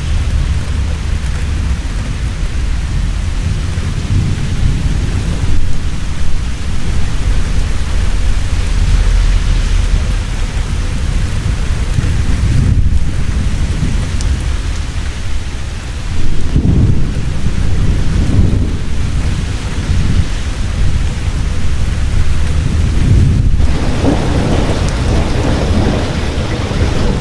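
Heavy rain falling steadily, with deep thunder rumbling throughout and swelling in low rolls a little past the middle and again near the end.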